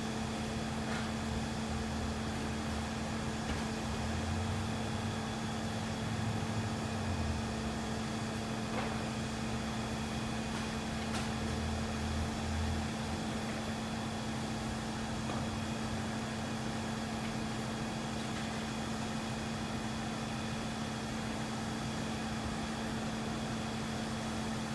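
A heavy engine running steadily with a constant hum, its low rumble swelling and easing a few times.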